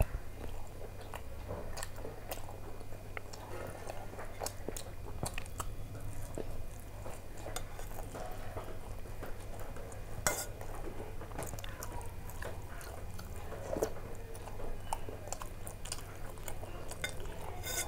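Close-up chewing and mouth sounds of someone eating paratha with curry, with a steel spoon clinking and scraping now and then against a steel bowl and plate; one sharper click about ten seconds in. A steady low hum lies underneath.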